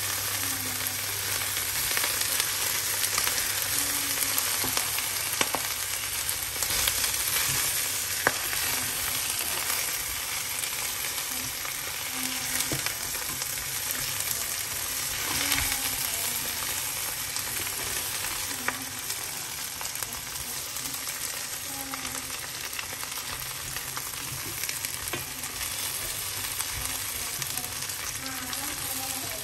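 Whole giant freshwater prawns sizzling and frying in oil in a nonstick pan, with steady spitting hiss. A spatula scrapes and taps against the pan now and then as the prawns are turned.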